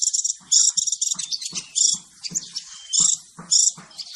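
Male crimson sunbird call recording: short bursts of rapid, high chirping twitters, repeated about twice a second, with faint low knocks beneath.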